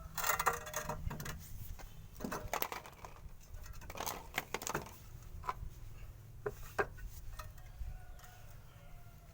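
Irregular clicks, taps and short scrapes of small hard objects being handled, over a steady low hum.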